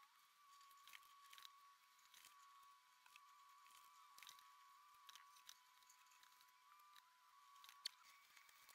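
Near silence: a faint steady high tone with faint scattered soft ticks and taps.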